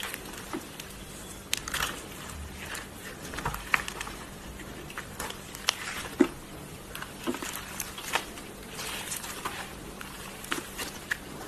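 Hands kneading and squeezing clear slime mixed with white foam, giving irregular small clicks, pops and squishes, several a second, some sharper than others.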